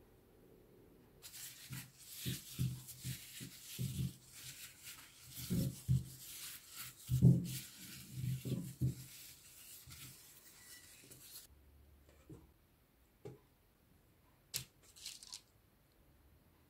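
Hands in thin plastic food-prep gloves tossing oiled potato halves in a glass bowl: the gloves crinkle and the potatoes thud softly against each other and the bowl. This stops about two-thirds of the way through, leaving a few separate sharp taps.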